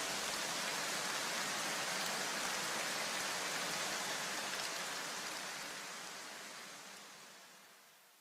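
A steady, even hiss of noise with no tone in it, fading away over the last few seconds.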